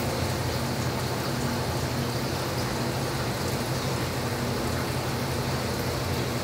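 Steady rush of running water with a constant low hum from a lab seawater tank system.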